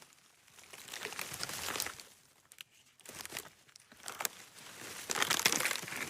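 Wood cracking and splintering under strain: dense runs of small snaps and crackles that swell twice, the second run, from about four seconds in, the louder.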